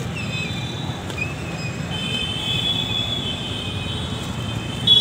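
Street traffic noise: a steady low rumble with thin high tones that waver, then hold from about two seconds in.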